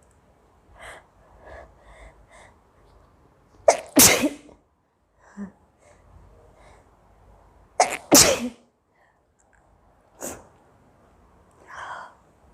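A woman sneezing hard twice, about four seconds apart, each sneeze with a sharp catch of breath just before it. The sneezes are set off by coriander powder sniffed into her nose. Fainter sniffs and breaths come between and after them.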